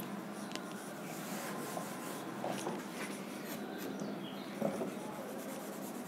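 Whiteboard eraser rubbing across a whiteboard, wiping off marker writing; faint.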